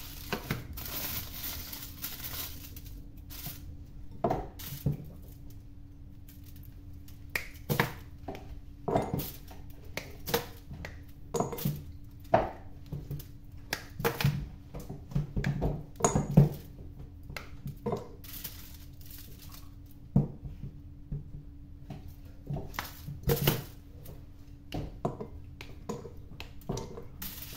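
Dark chocolate bar being unwrapped from its aluminium foil and broken up into a ceramic bowl: foil crinkling at first, then a long series of sharp snaps and clicks as pieces are broken off and dropped into the bowl. A faint steady hum runs underneath.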